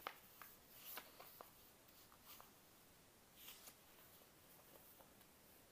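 Faint handling of a spiral-bound paper planner: pages lifted and turned by hand, with a few soft taps in the first couple of seconds and a brief papery rustle a little past halfway.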